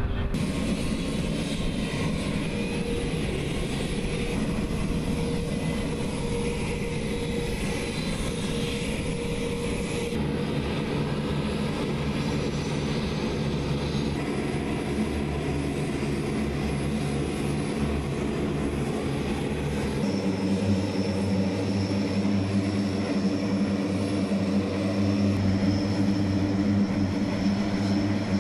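Turboprop engines of a C-130 Hercules running on the ground: a steady, heavy propeller drone with a thin high whine. The tone shifts abruptly twice, about ten and twenty seconds in.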